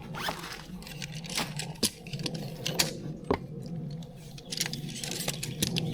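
Scattered sharp clicks and light clinks at an uneven pace, over a faint low hum.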